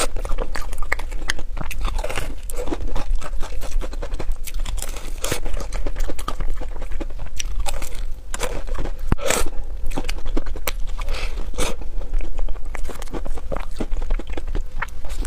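Close-miked crunching and chewing of a cream puff with a crisp, crumbly crust: many irregular sharp crackles as it is bitten and chewed.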